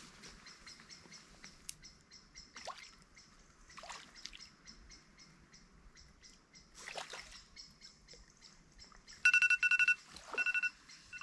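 Small birds chirping faintly in the background. Near the end comes a rapid run of loud, high electronic beeps, followed by a few slower single beeps.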